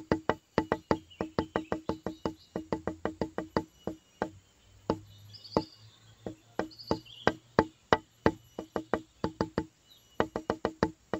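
Background music built on a quick, steady wood-block-like clicking beat, several clicks a second, with a couple of short breaks and faint high chirps over it.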